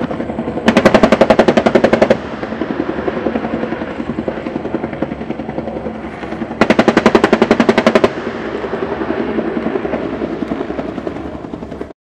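AH-1S Cobra's M197 20 mm three-barrel rotary cannon firing two rapid bursts of about a second and a half each, some six seconds apart, over the steady beat of the helicopter's rotor. The sound cuts off abruptly near the end.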